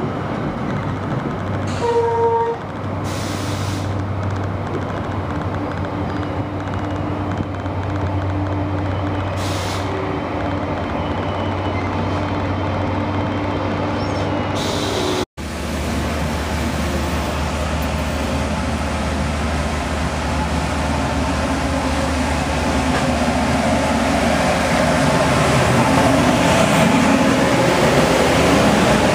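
NJ Transit commuter train of multilevel coaches rolling past at a station platform, a steady low hum under the rumble of the cars, with a short pitched tone about two seconds in. Near the end the Bombardier ALP-45DP locomotive passes close and the noise grows louder.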